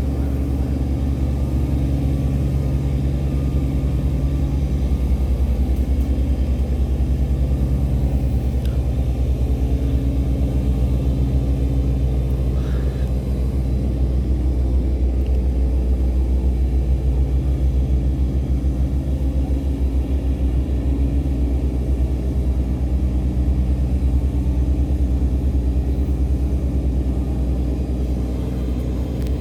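Tugboat diesel engines running steadily under load, towing a cargo barge upstream against the flood current. The drone is loud and low-pitched and does not change.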